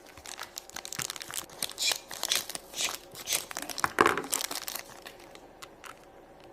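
Wrapper packaging crinkling and tearing as it is handled and pulled open, with a run of sharp crackles that stops about five seconds in.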